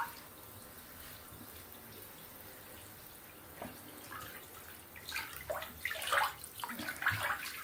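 Bath bomb fizzing faintly in bathtub water, then small splashes and drips in the tub from about five seconds in.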